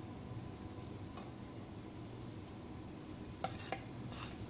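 Vegetables and shredded chicken sizzling steadily in a non-stick wok. Near the end come two light clicks as a plate of scrambled egg is tipped against the wok.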